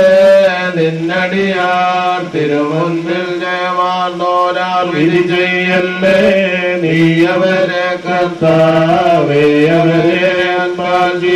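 Male clergy chanting a funeral hymn through a microphone, long held notes sliding from pitch to pitch without a break.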